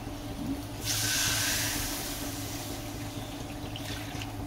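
Coconut milk poured into a hot kadai of fried, spiced vegetables, hissing loudly as it hits the pan about a second in, then dying down gradually to a gentle sizzle.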